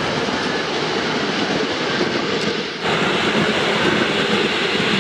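Steam-hauled passenger train running by, a steady rumble of coach wheels on the rails. About three seconds in the sound changes abruptly and grows louder as the coaches roll past close at hand.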